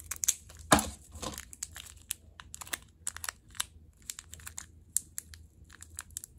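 Small plastic sachet crinkling and crackling as it is handled and opened by hand, with one louder sharp click under a second in.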